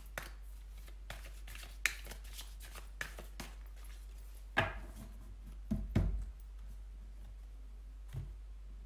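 Oracle cards being handled on a table: scattered soft taps and card slides, with a few louder knocks about halfway through.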